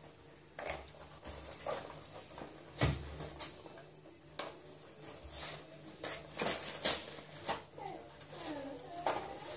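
A dog rummaging with its nose through a cardboard egg carton and crumpled paper on a fleece crate bed: irregular short rustles, crinkles and sniffs.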